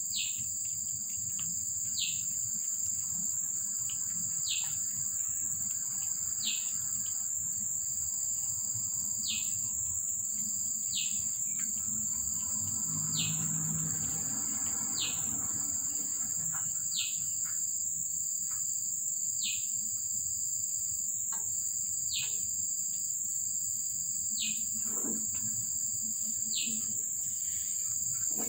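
A steady, high-pitched insect drone, most likely crickets or cicadas. Over it, a bird repeats a short call about every two seconds: a high held note that drops sharply in pitch.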